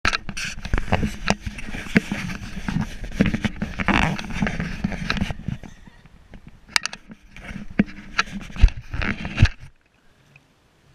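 Handling noise on an action camera set on the grass: rustling, scraping and a run of knocks on the camera, cutting off suddenly about ten seconds in.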